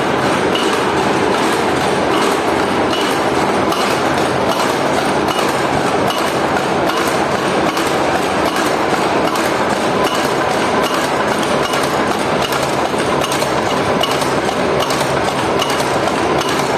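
Header machine (cold-heading press) running, a loud steady mechanical clatter with an even, repeating knock from each stroke.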